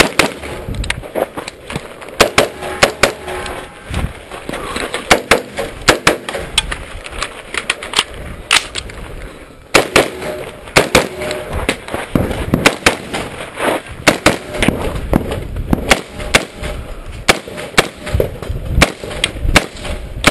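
AR-15 rifle fired at close range, dozens of sharp shots in quick pairs and short strings, with a brief pause about nine seconds in.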